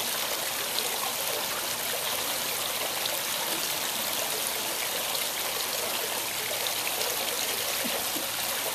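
Steady rush of water falling from a pool's rock waterfall feature and splashing into the pool, an even hiss that does not change.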